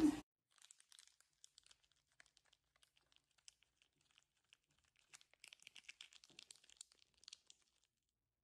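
A brief low thump at the very start cuts off abruptly. Then faint, scattered crackling rustles of fur and clothing follow as a Samoyed is carried in a person's arms, thicker from about five seconds in.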